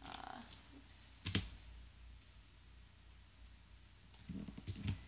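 Faint computer keyboard and mouse clicks: a single sharp click about a second in, then a quick run of several key taps just after four seconds.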